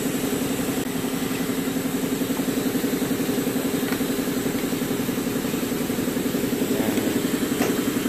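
An engine idling steadily: an even, fast-pulsing hum throughout. A couple of faint clicks near the end as the bulb is pushed into its socket.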